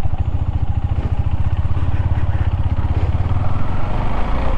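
Motorcycle engine running with a steady, fast low pulsing of firing strokes; the low tone shifts slightly about three seconds in.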